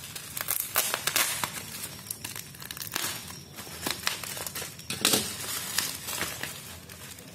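Black plastic bubble-wrap packaging crinkling and rustling in irregular bouts as it is handled and slit open with a utility knife, loudest about a second in and again about five seconds in.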